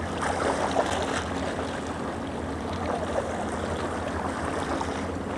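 Small sea waves washing and lapping against coral rocks, an even crackling wash with a steady low hum underneath.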